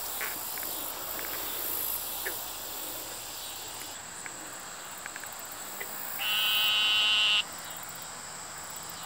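Wetland chorus of frogs and insects: a steady high insect trill runs throughout, with a few short faint chirps. About six seconds in, an eastern narrow-mouthed toad gives one loud, nasal, buzzing bleat lasting just over a second.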